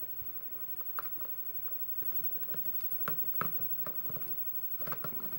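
Small metal clicks and scrapes as a clip-remover tool pries at the retaining clip on the back of a Kwikset lock cylinder, the clip holding on tight. Irregular ticks, a few sharper ones about three seconds in and a quick run of them near the end.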